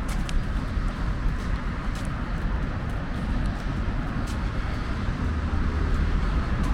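Road traffic: cars passing on a street as a steady low rumble, growing a little louder about five seconds in.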